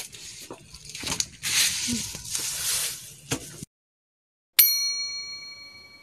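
Hissing kitchen noise with scattered clicks, cut off abruptly about three and a half seconds in. About a second later a bright chime sound effect strikes once and rings, fading slowly.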